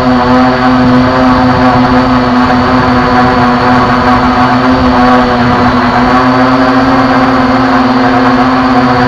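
Bug drone's propellers and motors whining at a steady pitch in flight, with rough wind noise underneath.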